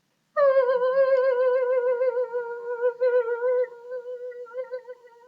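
A man's high-pitched throat whine, held for about five seconds with a fast, even wavering and fading near the end: a vocal imitation of a frightened, trembling puppy, made as a dubbing sound effect.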